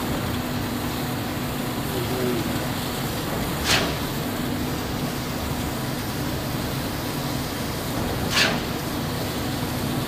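Concrete pump running steadily with a constant low hum, and a short sharp sound twice, about four and a half seconds apart, as concrete is pumped through the delivery hose.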